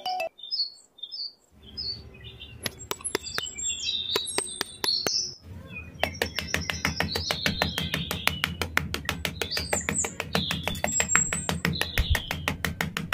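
Birds chirping, with rapid gritty clicking that grows denser and louder from about six seconds in as a small flat metal trowel scrapes over sand.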